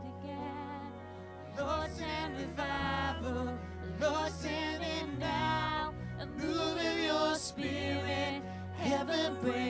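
Live worship band playing a song: vocalists singing lyric lines over strummed acoustic and electric guitars and a sustained bass guitar. The vocal phrases begin about a second and a half in and come in several lines.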